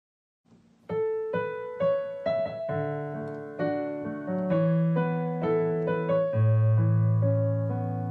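Background piano music, a slow melody of single notes over held low chords, coming in about a second in after a short silence.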